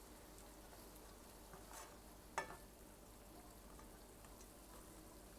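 Vegetables sizzling faintly in a pan while being stirred, with a utensil clinking against the pan about two and a half seconds in.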